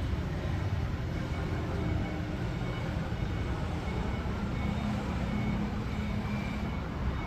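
Steady low rumble of outdoor background noise, with a faint steady hum rising above it for a couple of seconds in the middle.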